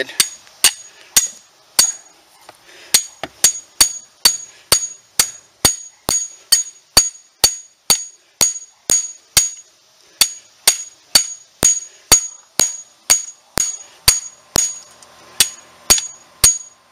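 Hammer striking a punch-type swaging tool driven into the end of a copper refrigerant line, expanding it to take a swaged joint: sharp metallic strikes about two a second, each with a short ring.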